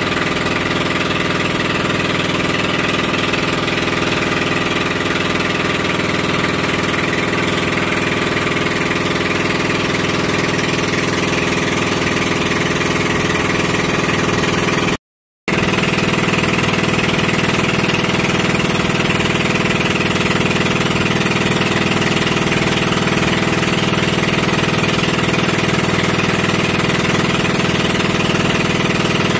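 Boat engine running steadily under way, with water and wind noise. The sound drops out for about half a second halfway through.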